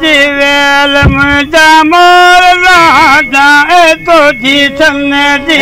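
Men singing together in a traditional Kutchi folk devotional style: one voice holds a steady drone note while others sing a wavering, heavily ornamented melody above it. The drone steps up slightly about two seconds in and drops back near the end.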